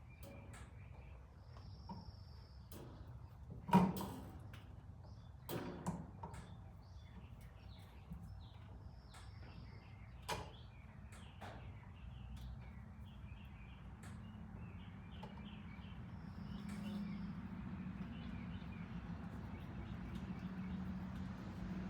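Scattered clicks and knocks of hand work fitting an electrical outlet's cover plate, the loudest a sharp knock about four seconds in. A low steady hum comes up in the second half.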